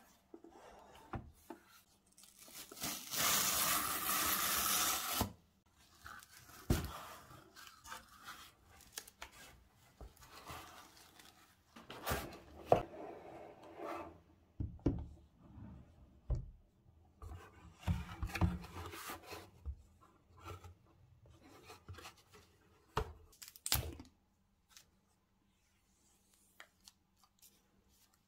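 Cardboard shipping carton being torn open: a tear strip ripped along the box for about two seconds starting about three seconds in, followed by cardboard flaps rustling and scattered knocks as the boxed tablet is handled and lifted out.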